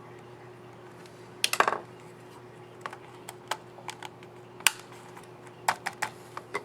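MSI GE62 6QD laptop keyboard keys clicking: a quick cluster of sharp clicks about a second and a half in, then about a dozen single key presses spread out over the rest.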